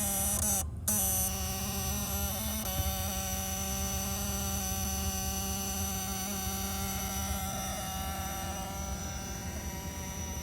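Steady electrical buzz from under the dashboard of a 1999 Oldsmobile Aurora, a pitched drone over a low rumble, dropping out briefly just under a second in. The buzz comes and goes with the car's lights flashing at random, the sign of an electrical fault behind the dash.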